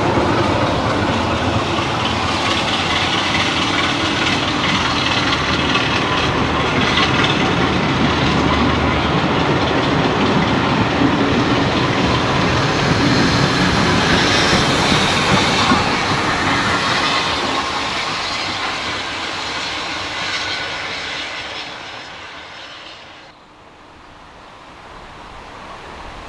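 Heritage passenger train passing close by, its coach wheels clicking and rumbling over the rail joints. The sound fades away over the last several seconds as the train moves off, then cuts off abruptly near the end.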